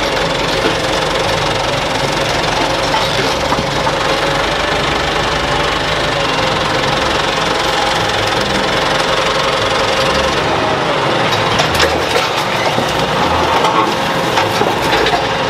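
Forklift engine running steadily under load as it lifts and places a stripped car body, with a few metal knocks in the last few seconds.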